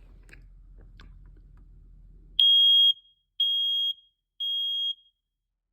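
Battery-powered smoke detector, fresh battery just fitted, sounding its alarm: three loud, high-pitched beeps about a second apart, after a few faint handling clicks.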